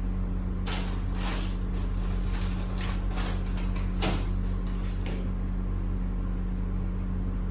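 A run of irregular scraping and rustling noises from objects being handled, lasting about four seconds, over a steady low hum.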